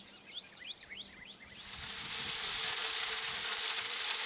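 A few quick bird chirps, then about a second and a half in an automatic game feeder goes off. Its motor hums steadily under the loud hiss of feed being flung out by the spinner.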